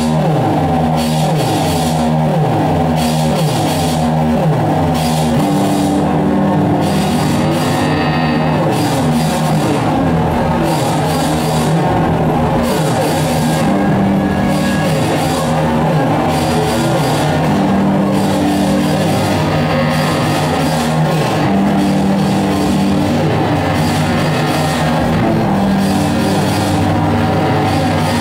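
Loud live experimental noise music: a dense, unbroken wall of distorted sound with a held low drone and repeated sliding low tones.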